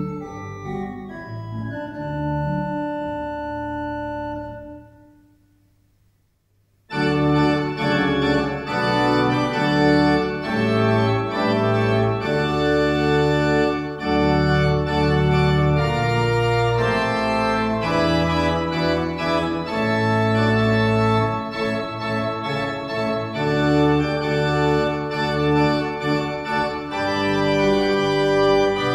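Church pipe organ playing held chords. A softer passage ends and dies away in the reverberation, then about seven seconds in a louder, fuller registration enters abruptly and plays on, with chords over a moving bass line.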